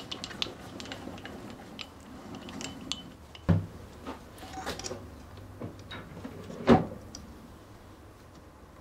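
Metal hand tools being picked up and handled as a tap wrench is fitted onto a tap: a scatter of light clicks and clinks, with two sharp knocks, one about three and a half seconds in and a louder one a little past six and a half seconds.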